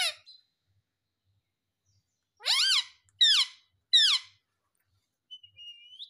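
Indian ringneck parakeet calling: three loud, short calls that sweep up and down in pitch follow one another quickly about two and a half seconds in, and a faint thin whistle comes near the end.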